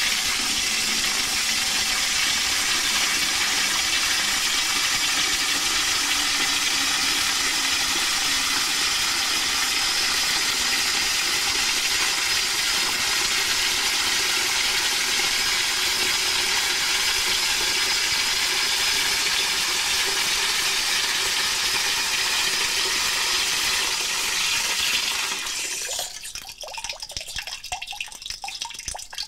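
Water running in a steady rush, then dropping off about 25 seconds in to a thin trickle and drips.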